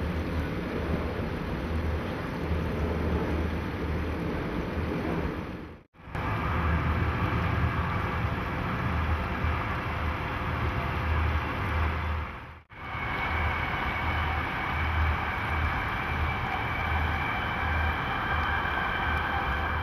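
Motorboat engine running steadily under way, a low pulsing rumble with water and wind noise over it, broken off abruptly twice. After the second break a faint steady whine sits on top.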